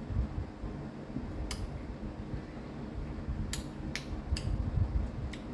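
A person eating lemon slices, chewing close to the microphone, with five sharp clicks or smacks spread through.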